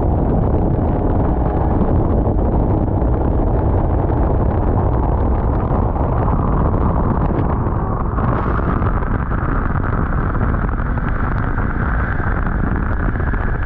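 Snowmobile engine running while riding, under heavy wind and snow buffeting on the microphone; about eight seconds in a higher whine comes in and holds.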